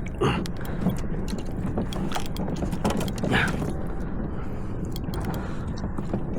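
Fishing reel being cranked in under load, its gears whirring and clicking steadily, with scattered knocks.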